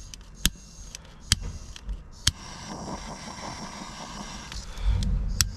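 Sharp clicks and handling noise from hand work on crimped tweeter wire connectors: three loud clicks about a second apart, then a steady faint hiss with a thin high tone, and a low rumble near the end.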